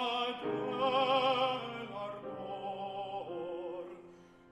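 A classical baritone sings an Italian art song in full operatic voice with piano accompaniment. He holds long notes with a wide vibrato, and a new word comes in near the end as the sound thins and drops away.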